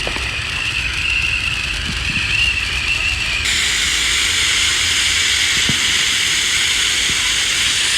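Firework spraying sparks with a steady hiss; about three and a half seconds in the hiss abruptly turns brighter and fuller.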